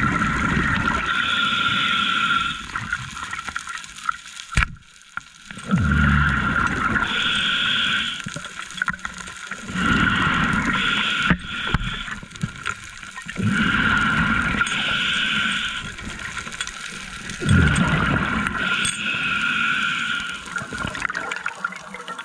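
Scuba diver breathing through a regulator underwater, about five breaths roughly four seconds apart: each one a low rush of exhaled bubbles followed by a hissing inhale through the demand valve with a steady whistle in it.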